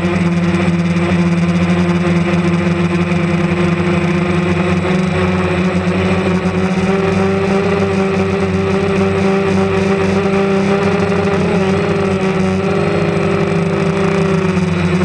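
DJI Phantom 2 Vision+ quadcopter's motors and propellers droning steadily in flight, the pitch wavering slightly as the motor speeds adjust.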